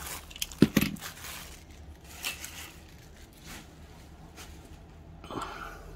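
Handling noises as a small die-cast toy car is picked up: a few sharp clicks, the loudest about half a second in, then scattered light ticks and soft rustling.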